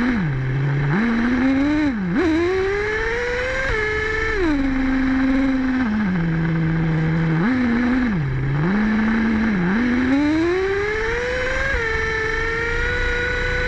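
Traxxas Revo nitro RC truck's small glow engine revving up and down as the truck drives. Its pitch climbs in two long rises, holds high, then falls back.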